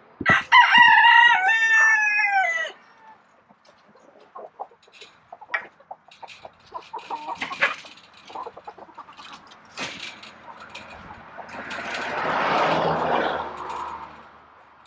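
A rooster crows once, a long call of about two and a half seconds with a falling end, followed by scattered short hen clucks and small clicks. Near the end a rustling noise swells and fades.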